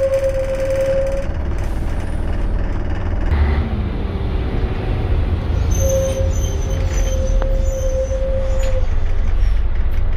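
Scania L113 bus's 11-litre diesel engine running, a steady low rumble heard from inside the cabin. A steady whine-like tone sits over it, stopping about a second in and coming back for about three seconds later on.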